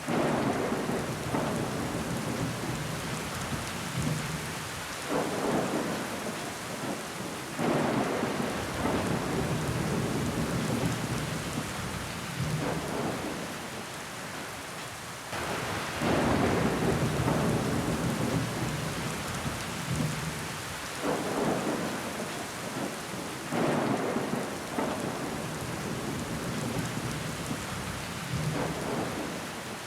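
Steady rain falling, with water running. Every few seconds the sound swells suddenly and then fades away, six or seven times in all.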